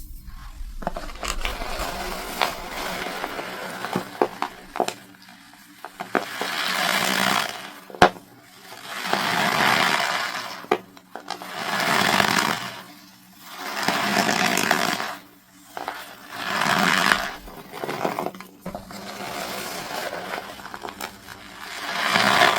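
Compacted cornstarch bricks being squeezed and crushed by hand, crunching and crumbling in repeated squeezes about every two to three seconds. Sharp snaps come between the squeezes, the loudest about eight seconds in.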